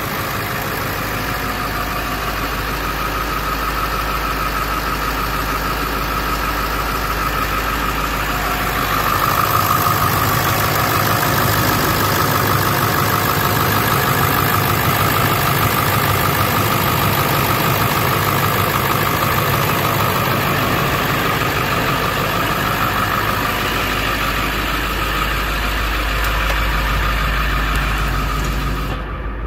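1999 Ford F450 dump truck's engine idling steadily, a little louder for a stretch in the middle.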